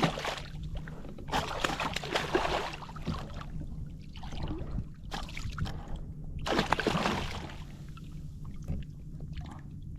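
Water splashing and sloshing against a kayak in several irregular bursts as a hooked redfish thrashes at the side.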